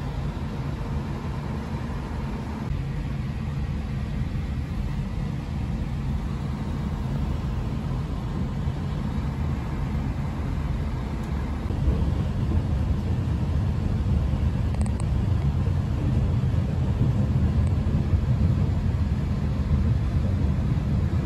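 Passenger train running, heard from inside the carriage: a steady low rumble of wheels on the track that grows louder about halfway through.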